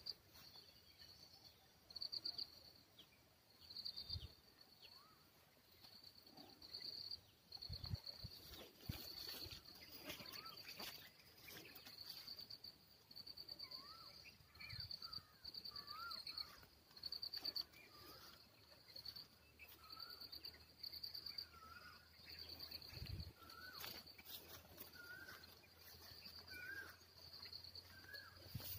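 Faint outdoor ambience: insects chirring in steady, even pulses, with a bird repeating a short rising-and-falling call about once a second from halfway on. A few soft knocks from the camera being handled.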